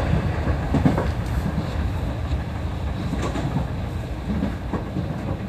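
Hankyu electric train heard from inside the front car: steady running rumble with scattered clacks from the wheels passing over rail joints and points, growing gradually quieter as the train eases alongside a station platform.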